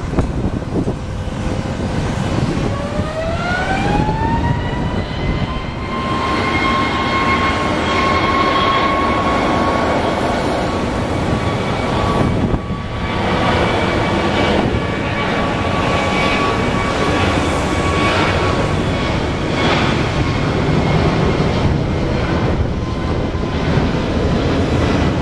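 Airbus A321neo's CFM LEAP-1A turbofan engines spooling up to takeoff thrust. A whine rises in pitch about three seconds in and then holds steady over a loud, even roar as the airliner starts its takeoff roll.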